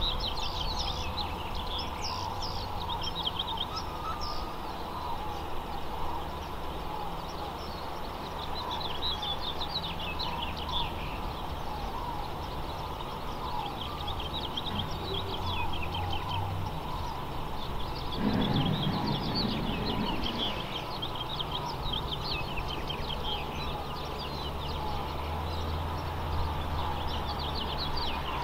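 Small birds chirping again and again over the steady low rumble of an automated side-loader garbage truck's engine. The rumble swells for a couple of seconds about two-thirds of the way in.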